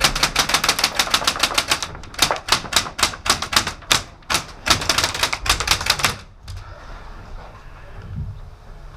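Airsoft electric gun (AEG) firing on full auto, rapid sharp shots in three bursts of about two seconds each, stopping about six seconds in.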